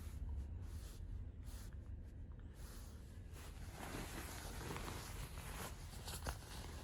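A low steady rumble, with rustling and handling noises starting about three and a half seconds in and a sharp click near the end.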